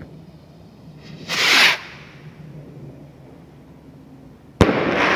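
Shotgun brand Pig Lit sky rocket launching with a short, loud whoosh about a second in. About three seconds later its break goes off with one sharp bang that dies away slowly.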